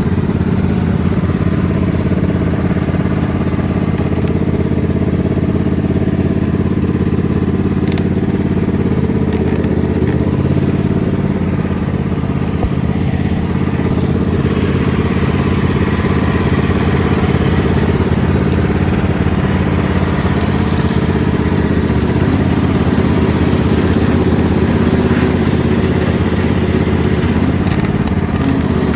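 Ride-on lawn mower engine running steadily at a near-constant speed.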